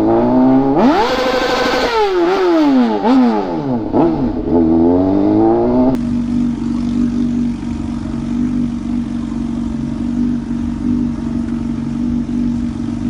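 Motorcycle engine revving up and dropping back several times through the gears, then, after an abrupt change about six seconds in, a steady unchanging engine drone.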